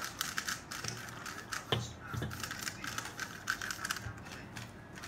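Plastic 3x3 speed cube being turned by hand: quick, irregular flurries of small clicks, with one louder knock about a second and a half in.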